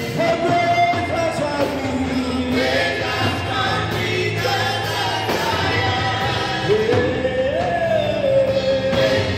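Gospel praise song: a man sings lead into a microphone over live band accompaniment, with long held notes that rise and fall.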